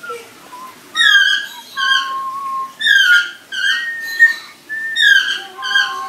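African grey parrot whistling: a run of loud, clear whistled notes about once a second, some sliding up or down in pitch and a few held as steady tones.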